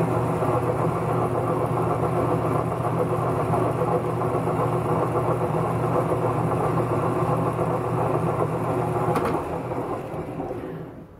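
Logan metal lathe running steadily with a constant motor hum, which fades out near the end.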